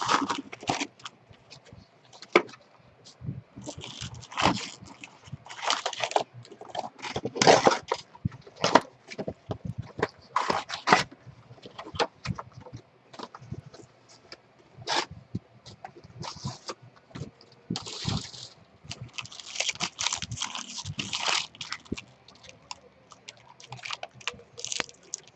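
Topps Series 2 baseball card packs and box being opened and the cards handled: irregular bursts of tearing, crinkling and rustling with short pauses between them.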